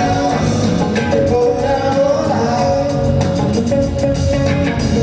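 Live band playing a Latin rock song: a voice singing over electric guitars, keyboard and drums.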